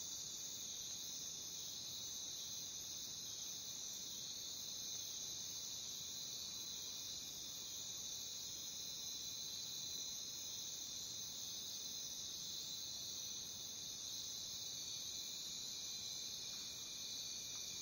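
Jungle crickets chirping in a dense, unbroken chorus: a steady high-pitched trill with a fainter lower tone beneath it.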